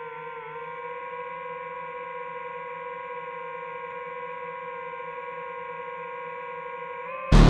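Background electronic music: a sustained synthesizer chord held steady, then a loud electronic beat drops in just before the end.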